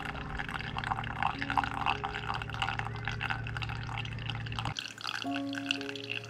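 Brewed coffee dripping steadily from a pour-over paper-filter dripper into a glass server, a quick patter of drops. Near the end, hot water is poured from a kettle onto the coffee grounds.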